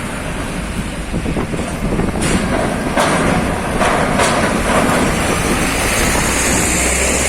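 Heavy trucks moving on the port pier: a steady rumble of diesel engines and tyres, with several sharp metallic clunks between about two and four seconds in.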